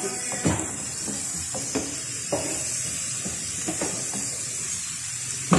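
Chicken and tomatoes sizzling in a non-stick frying pan while a silicone spatula stirs them, with a steady hiss and several short scrapes and knocks of the spatula against the pan.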